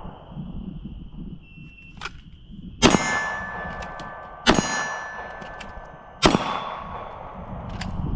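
Three pistol shots about a second and a half apart, each followed by the ringing of a struck steel target.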